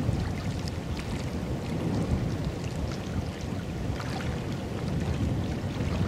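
Strong wind buffeting the microphone: a steady, gusting low rumble, with a few faint small clicks over it.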